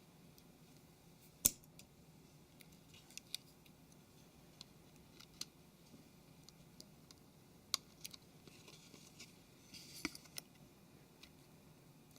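Sparse small clicks and taps as a smartphone's headphone socket and its small circuit are handled and pressed into the phone's plastic housing, with one sharper click about a second and a half in and faint rustling later on.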